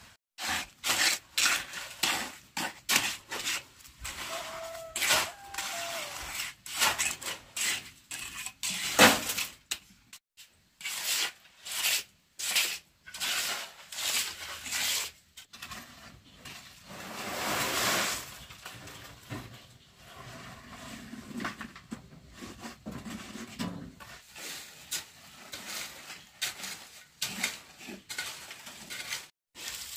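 A hand trowel scraping and spreading wet concrete in a run of short, irregular strokes, with a longer scrape about halfway through.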